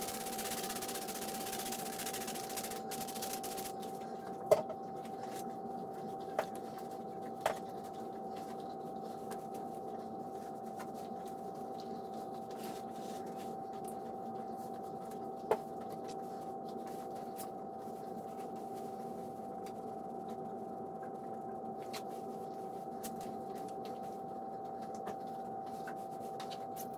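Hands in rubber gloves cleaning a porcelain pedestal sink with a cloth, over a steady hum with a high whine. A hiss in the first few seconds, then a few sharp knocks on the porcelain, the loudest about four and a half seconds in.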